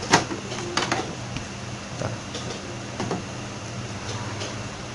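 Canon iP2770 inkjet printer being handled after its cartridges are refitted: a few sharp clicks and light knocks, about a second apart, over a low steady hum.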